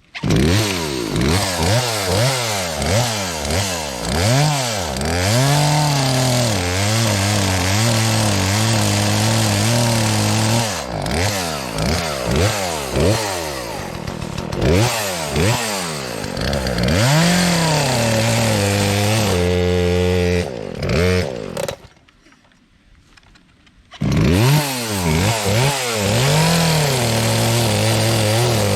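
Two-stroke chainsaw cutting into a tree trunk, revving up and down again and again with stretches of steady running under load in the cut. About 22 seconds in it falls nearly quiet for about two seconds, then runs again at a steady pitch.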